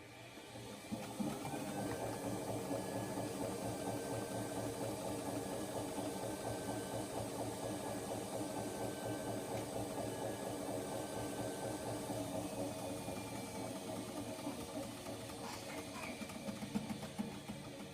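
Washing machine on its spin cycle: the motor and drum whir up over the first second or so, then run steadily. A few light knocks come near the end.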